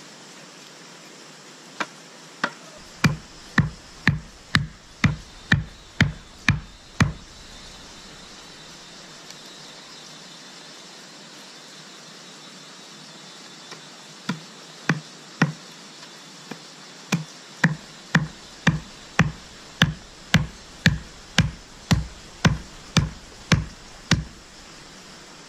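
A hand-held stone striking a wooden stick, sharp knocks about two a second: a run of about a dozen, a pause of several seconds, then a longer run of about eighteen.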